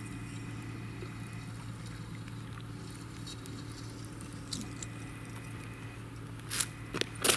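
Spinning reel being cranked as a hooked fish is reeled in on a bent rod, with a steady low hum underneath. A few sharp clicks and knocks come near the end.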